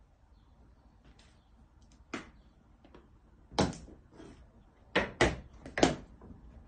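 Knocks and thuds against a sliding glass door as a small dog squeezes through the narrow gap with a large green toy in its mouth. One knock about two seconds in, a loud one about a second and a half later, then three in quick succession between five and six seconds.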